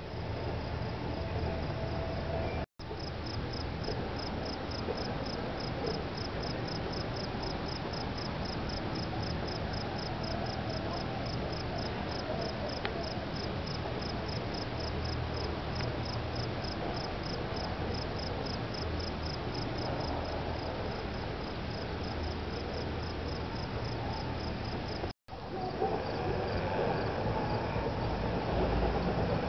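An insect chirping in a steady, even rhythm of high pulses, over a low rumbling background. The sound cuts out for an instant about three seconds in and again near the end.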